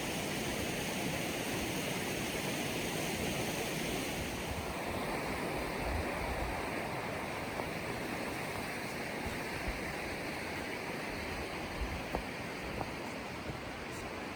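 Steady rushing of a mountain river, with a few faint ticks near the end.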